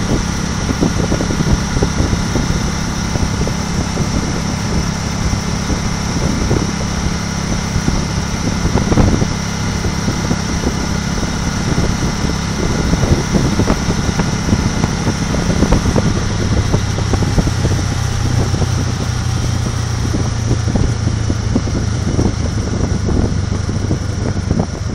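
A car being driven, with steady engine hum and road noise. About two-thirds of the way through, the hum drops to a lower pitch.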